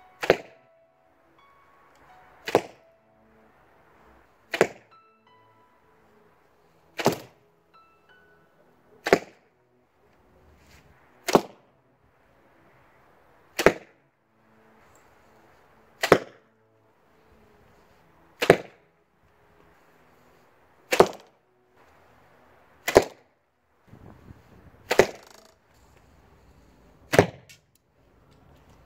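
Arrows striking a homemade archery target one at a time, a sharp hit about every two seconds, thirteen in all.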